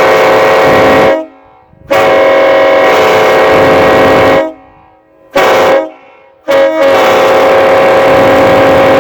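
Multi-chime locomotive air horn sounding a loud chord of several steady notes in blasts: the end of one long blast, another long blast, a short one, then a long held blast, the long-long-short-long pattern of a grade-crossing signal.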